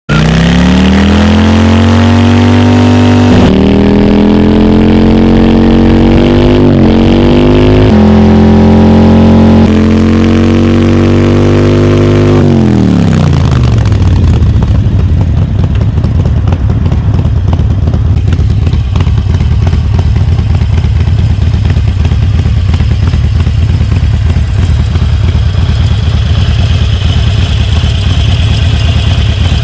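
Harley-Davidson Sportster Forty-Eight's air-cooled 1200 cc Evolution V-twin held at high revs for a burnout, the pitch climbing and stepping up a few times. About twelve seconds in, the revs drop and it settles into a steady, pulsing idle.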